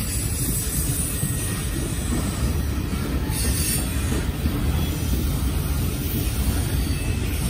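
Freight train of tank cars and autorack cars rolling past close by, a steady rumble of steel wheels on the rails.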